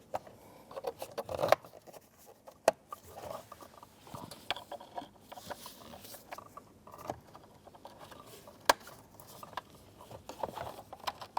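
Plastic wiring connectors being plugged into a car's instrument cluster: scattered sharp clicks, a few of them loud, amid rustling from handling the plastic parts.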